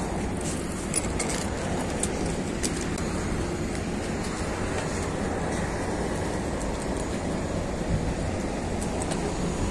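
Steady low rumble inside the cabin of a LiAZ 6213.22 articulated city bus while it runs, with a few short rattles and clicks in the first few seconds.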